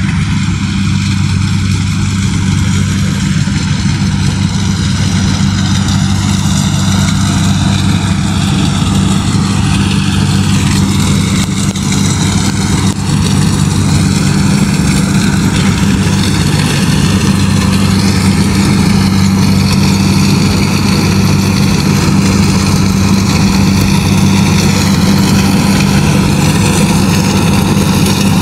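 Kubota DC-70G Plus rice combine harvester running steadily at working speed, its diesel engine humming low and even, with the threshing machinery whirring higher above it.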